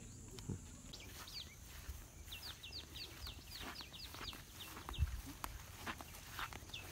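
A bird calling: a fast run of short, high, down-slurred notes, about four a second, with a few more notes before and near the end.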